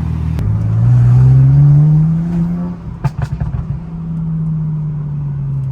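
Tuned BMW 335i turbocharged straight-six accelerating, its exhaust note climbing steadily for about two seconds. It then crackles in a short burst as the throttle closes, and settles into a steady, slowly falling drone while cruising.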